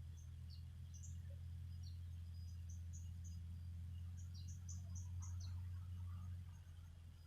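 Outdoor ambience: scattered short, high chirps from small creatures, likely insects or birds, over a steady low rumble.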